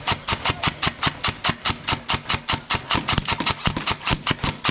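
Airsoft gun firing a steady rapid stream of shots, about seven sharp cracks a second without a pause.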